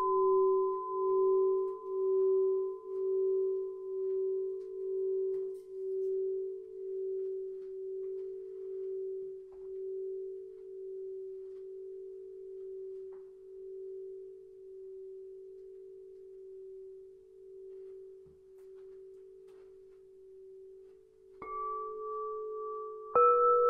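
Singing bowl ringing after a strike, its tone pulsing slowly about once a second and fading over some twenty seconds. Near the end a bowl is struck again, then a second, higher-pitched one.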